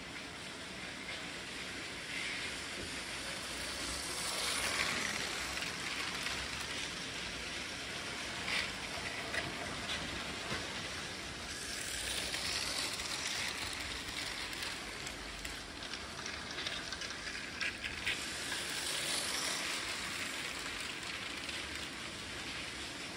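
Battery-powered Lego trains running on plastic track: a steady whirr of small electric motors and wheels rattling over the rails, swelling and fading a few times as trains pass close by, with occasional clicks.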